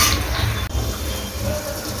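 Curry simmering in an aluminium karahi over a gas burner, a spoon stirring through the thick gravy, over a steady low rumble.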